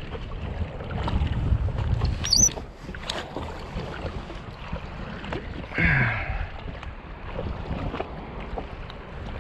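Wind buffeting the microphone on an open jet ski, strongest in the first few seconds, with scattered small clicks and knocks of handling and a brief high squeak about two seconds in.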